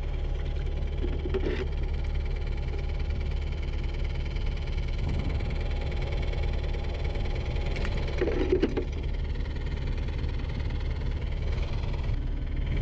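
A steady mechanical hum, like a small motor running, over a constant low rumble. A brief knock and rustle comes about eight seconds in.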